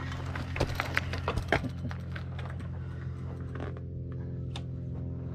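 Lectric 3.0 e-bike pulling away over gravelly pavement: a cluster of sharp clicks and crunches from its fat tyres and drivetrain in the first two seconds, then fading, leaving a steady low hum.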